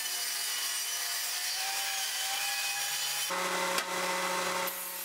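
Hand-held circular saw running along a guide rail, ripping through 3/4-inch maple plywood with a steady cutting noise. About three seconds in it changes abruptly to the steady hum of a table saw motor running, with a single click a moment later.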